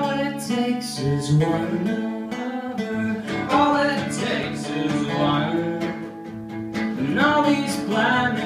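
Two acoustic guitars playing a song together with strummed chords, in a stretch between sung lines.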